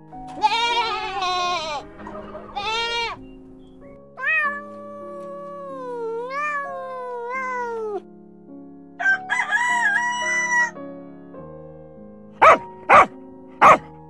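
A sequence of farm-animal calls over light background piano music. A goat bleats near the start, then a rooster crows in one long wavering crow. Another animal call comes about nine seconds in, and three short dog yaps come near the end.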